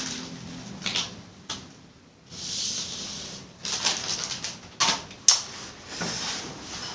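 Unboxing items being handled: a stretch of packaging rustling about two and a half seconds in, with several sharp clicks and taps scattered around it.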